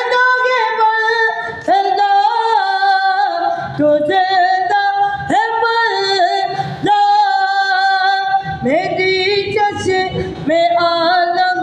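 A naat sung without instruments: a solo voice holding long, sliding notes in phrases of a second or two, with short breaks between them.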